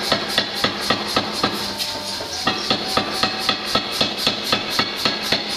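Rapid, evenly paced hammer blows on hot steel bar being forged, about four to five strikes a second, with a brief lull about two seconds in.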